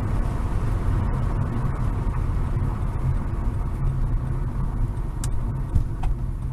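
Steady low rumble of a car, engine and road noise, as picked up by a dashcam inside the cabin, with a couple of faint clicks about five seconds in.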